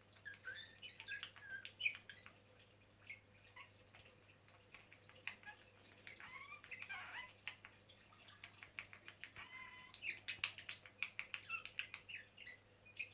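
Budgerigars chirping and chattering in short warbling calls, with quick runs of clicks near the end.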